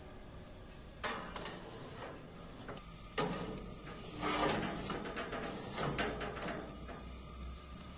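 Metal baking tray scraping and clanking against the rack of a stainless-steel oven as it is pushed in, a few knocks and scrapes with the longest scrape about halfway through.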